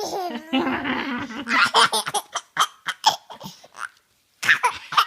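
Six-month-old baby laughing: a run of short laughs, a brief pause about four seconds in, then more laughing.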